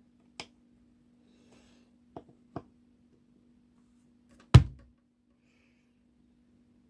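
A few light clicks of a euro cylinder lock and small tools being handled while taking the lock apart, and one louder knock about four and a half seconds in, over a faint steady hum.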